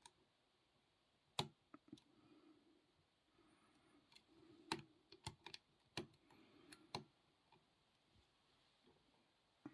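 Faint, irregular metallic clicks of a short hook pick and tension wrench working the pin stack of a 45 mm Meister padlock while it is being picked. The sharpest click comes about a second and a half in, and a cluster follows between about four and seven seconds.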